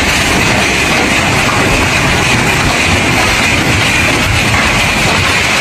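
Gale-force wind driving heavy rain, a loud steady rushing noise without a break.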